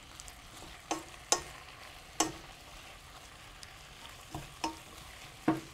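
Wooden spatula stirring baby spinach in a stainless steel sauté pan over a faint sizzle, with several sharp knocks as the spatula strikes the pan.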